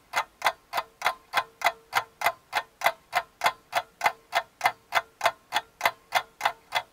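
Ticking-clock sound effect: an even run of sharp ticks, about three and a half a second, over a faint steady tone.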